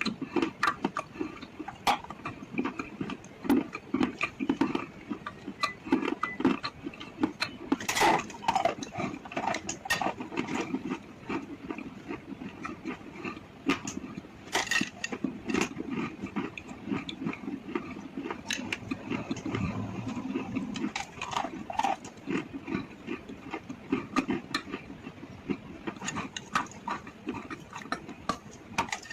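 Close-miked crunching and chewing of chalk and slate pencil: sharp snapping crunches all through, over a steady wet chewing noise.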